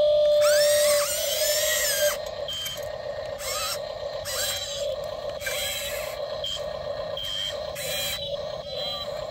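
Small electric motors of a handmade RC excavator whining steadily, with higher whines that rise and fall as the machine works; loudest for the first two seconds.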